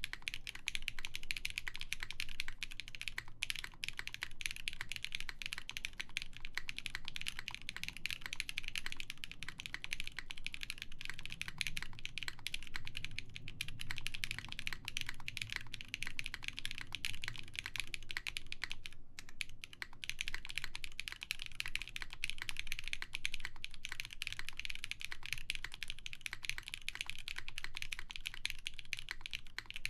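Continuous fast typing on a custom mechanical keyboard with lubed Zakus linear switches on a full polycarbonate plate, under GMK keycaps: a dense stream of key presses, with brief pauses about three and a half seconds in and just past the middle.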